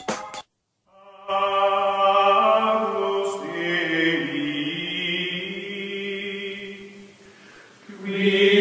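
Choral music of voices holding long, chant-like chords. It starts about a second in after a brief silence, fades down around seven seconds in, and swells again near the end.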